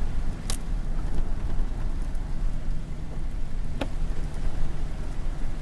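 Vehicle driving on a wet road in the rain, heard from inside the cab: a steady low road and engine rumble with a hiss over it. Two sharp clicks, about half a second in and near four seconds in.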